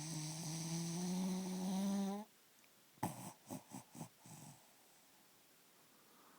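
Sleeping puggle snoring: one long, pitched snoring breath that rises slightly in pitch, then, about a second later, a quick run of five short snorts. The owner finds the breathing unusual for her.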